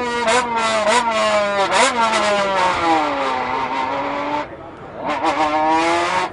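A man imitating a car engine with his voice through a can, a buzzing engine-like tone that wavers and glides like revs and gear changes. The pitch sinks slowly, breaks off briefly about four and a half seconds in, then climbs again.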